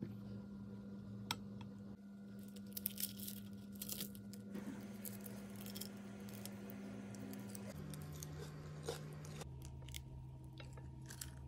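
Crisp dosa being torn by hand, a run of dry crackly crunches about three seconds in and a few more near the end. Under it a low steady held tone that steps down in pitch twice towards the end.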